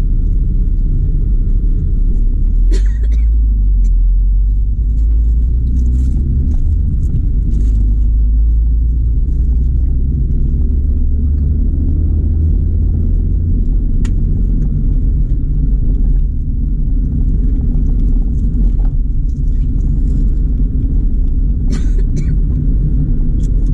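Steady low rumble of a moving Proton Exora 1.6's engine and road noise, heard from inside the car's cabin, with a few brief clicks.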